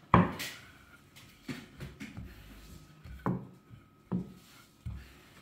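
Wooden rolling pin rolling out dough on a wooden board: a sharp wooden knock at the very start, then several softer knocks about a second apart as the pin is worked back and forth.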